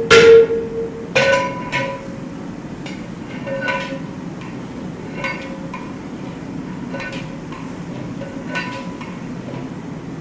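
Long metal ladle stirring meat in a large aluminium degh, clanging against the pot with ringing strikes: a loud clang at the start, then lighter clangs every second or two. A steady low rumble runs underneath.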